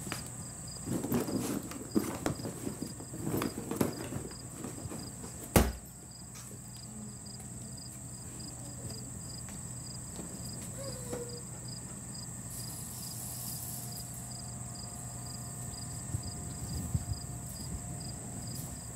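Cloth rustling as clothes are handled, then a single sharp knock about five and a half seconds in, the loudest sound. Under it runs a steady low hum and a faint, evenly pulsing high chirp.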